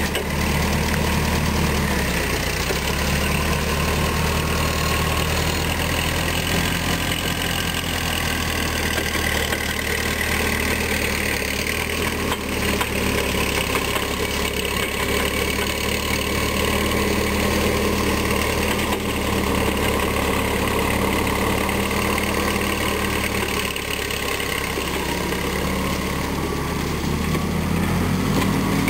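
Propane engine of a 1972 Hyster H50F forklift running steadily as the forklift drives off. The low engine hum shifts about two seconds in and rises near the end, over a steady hiss.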